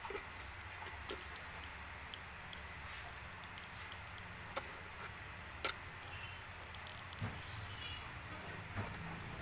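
Scattered clicks and light snaps of plastic parts on a Transformers Bonecrusher action figure as it is twisted and folded by hand, the sharpest about five and a half seconds in, over a steady low hum.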